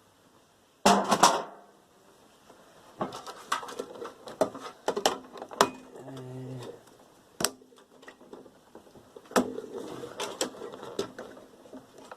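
Metal parts of a microwave oven being handled during dismantling: a loud clatter about a second in, then a run of irregular clicks and knocks.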